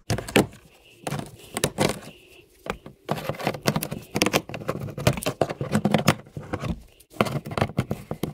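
Plastic trim-removal tool prying plastic push clips out of a car's front bumper cover and wheel-well liner: irregular plastic clicks, scrapes and rattles, with a couple of brief pauses.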